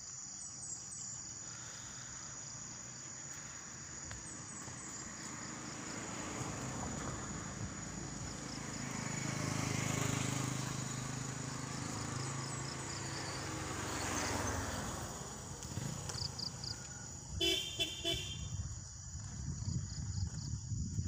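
Motor vehicles pass on the road, each rising and fading, then a vehicle horn gives three quick short toots about three-quarters of the way through. A steady high insect trill, crickets, runs underneath.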